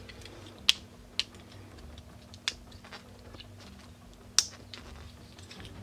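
Hard plastic parts of a Transformers Kingdom Tigatron action figure clicking as they are swung and snapped into place by hand, several sharp separate clicks with the loudest about four seconds in, over a low steady hum.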